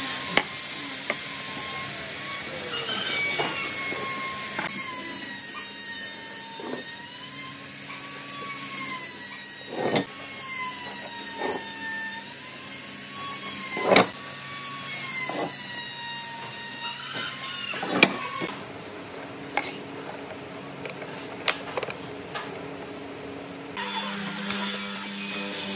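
Marking out timber by hand: a steel rule and try square set down on the wood, with sharp taps every few seconds over a faint wavering high tone. Near the end a bench-top hollow-chisel mortiser's motor starts up with a steady hum.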